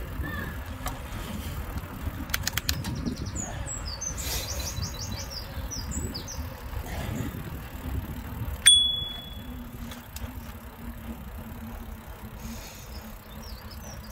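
Bicycle handlebar bell struck once about two-thirds of the way through: a bright ring that fades over about a second, a warning to walkers ahead on the path. Under it runs the mountain bike's steady tyre and wind noise, and birds chirp briefly in the first half.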